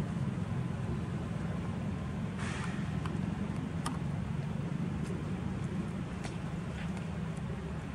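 A steady low rumble with a few faint clicks and a brief rustle about two and a half seconds in.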